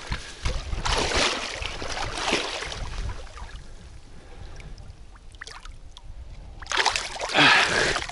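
Shallow water sloshing and splashing as a landing net is swept through it, with a louder splash near the end.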